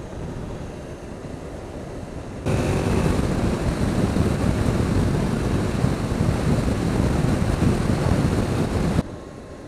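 Wind rushing over the microphone of a camera on a moving motorcycle, with the bike's running and road noise underneath. About two and a half seconds in the noise jumps suddenly much louder, then drops back just as suddenly near the end.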